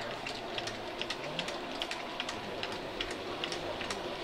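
H0 scale model freight wagons rolling slowly through a curve, their metal wheels clicking irregularly over the rail joints, several clicks a second, over a steady low running noise.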